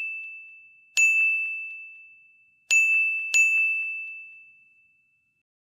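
Bright bell-like ding sound effect, struck three times: once about a second in, then twice close together near three seconds. Each strike is one high ringing tone that fades out over a second or so.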